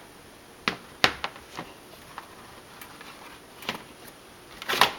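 Plastic storage-bin lid being handled and set onto the bin: a few scattered clicks and knocks, the loudest about a second in and a short cluster near the end.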